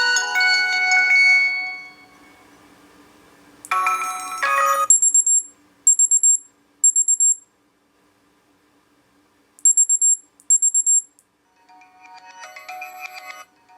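HTC Desire 610 alarm tones previewed one after another through the phone's speaker: a melodic tone fading out over the first two seconds, a short chime about four seconds in, then high-pitched electronic beeping in short groups with gaps, and another melodic tone starting near the end.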